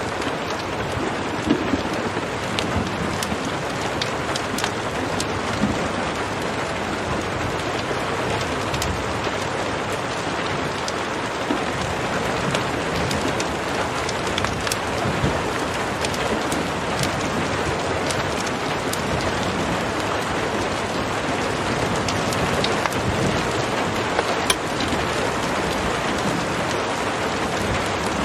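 Steady rain falling on a surface, with scattered sharp ticks throughout.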